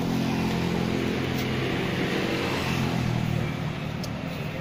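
A motor vehicle engine running with a steady low hum, over general street noise.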